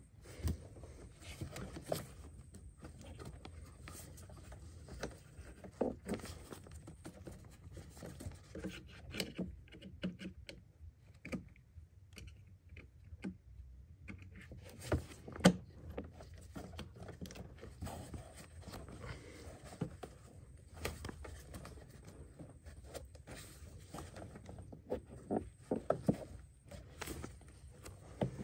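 Gloved hands working among the fuel lines and connectors around a diesel fuel filter: scattered light clicks, knocks and scraping of plastic and metal parts. There is one sharper knock about halfway, and a quick run of clicks near the end.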